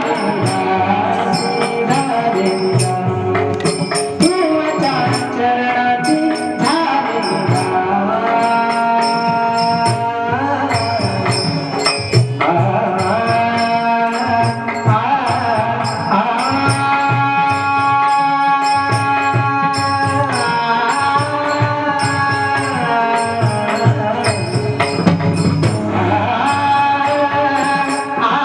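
Marathi bhajan music with no words: a melody of long held notes that slide from one pitch to the next, over a steady beat of drum and small hand cymbals.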